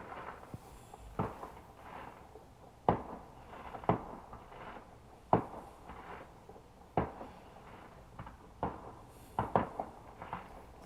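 Fireworks going off: a string of sharp bangs at irregular intervals, about one every second or so, each with a short echoing tail, with a quick cluster of several bangs near the end.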